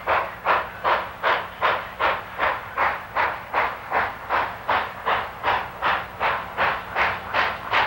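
Exhaust chuffs of Chesapeake & Ohio 2716, a 2-8-4 Berkshire steam locomotive, beating in a steady, even rhythm of about three a second as it pulls its train.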